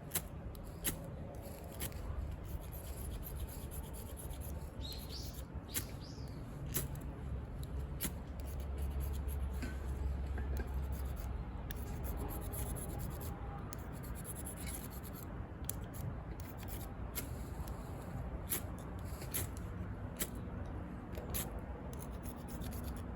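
Small scraping and rubbing handling sounds with scattered sharp clicks, and a couple of short bird chirps about five to seven seconds in.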